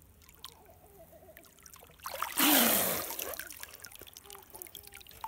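A child surfacing from shallow river water: a loud splash of water pouring off him about two seconds in, trailing off into softer trickling and drips.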